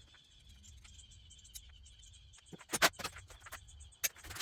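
Two sharp knocks from hand tools working on an ATV being torn down, the first just under three seconds in and the second about a second later, over a faint steady high-pitched trill.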